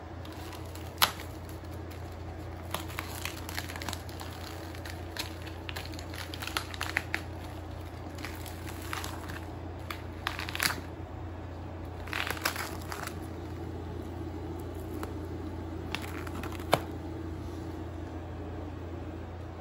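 Plastic wrap crinkling and tearing in short irregular bursts, with a few sharp clicks, as a tray-packed raw beef steak is unwrapped, over a steady low hum.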